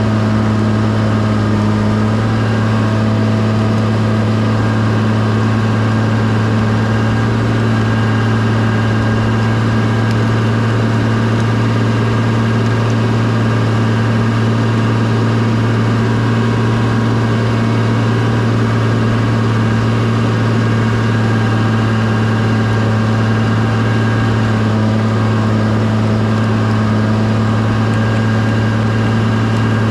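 Bulldozer's diesel engine running steadily at an even, unchanging speed, with a strong low hum.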